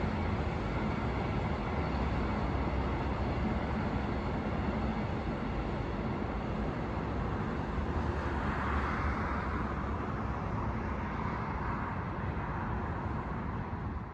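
Train passing along the line, its low rumble mixed with steady road traffic noise; a swell of rushing noise rises around nine seconds in.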